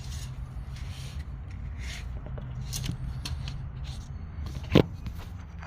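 Soft rustling and handling noises over a steady low hum, with one sharp knock a little before the end.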